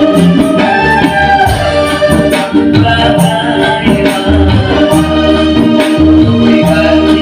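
A live band playing an up-tempo tune with a steady beat: kendang hand drums, electric guitar and bass, and keyboard lines on top.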